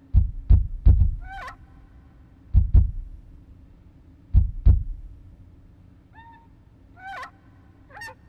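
Sound effects for a mime: deep booming thuds, mostly in pairs like a heartbeat, followed later by a few short squeaky honks that bend in pitch.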